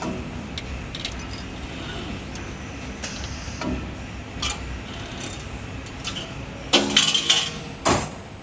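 CNC 3D wire bending machine at work: a steady mechanical run with clicks and knocks as the bending head turns and the wire feeds. About seven seconds in comes a louder burst of ringing metallic clanking, then one sharp clank a second later, as the finished wire form comes free of the head.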